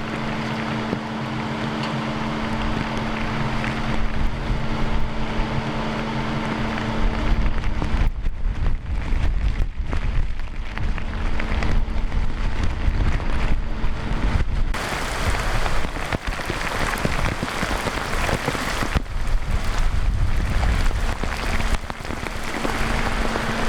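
Heavy rain pouring down in a tropical storm, with gusting wind rumbling against the microphone. A steady hum sits underneath for the first several seconds. It drops out as the gusts build and comes back near the end.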